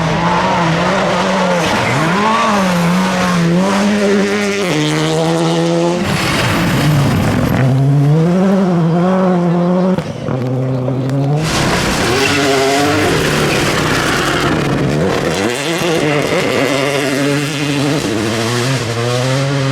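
Rally cars at full attack on a gravel stage, their turbocharged engines revving up and dropping back again and again through gear changes, with gravel noise. The sound changes abruptly about six and ten seconds in, as one car gives way to the next.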